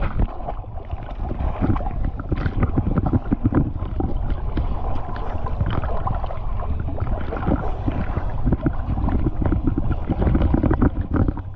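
Water splashing and sloshing around a small boat on the river, with wind rumbling on the microphone. The splashes come in short, irregular bursts over a steady low rumble.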